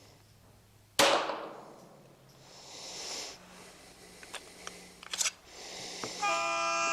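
A single .22 rimfire pistol shot from a CZ 75 with a Kadet .22 conversion, about a second in, with a long echoing tail. A few faint clicks follow, and near the end a steady tone sounds for about a second.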